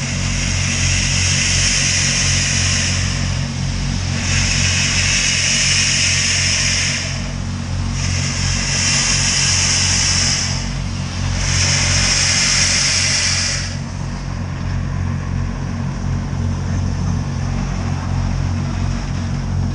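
Norfolk and Western Class J 611 steam locomotive moving at a crawl with its cylinder cocks open, blowing long hissing blasts of steam, one per piston stroke. There are four blasts of two to three seconds each, and they stop about two-thirds of the way through, over a steady low rumble.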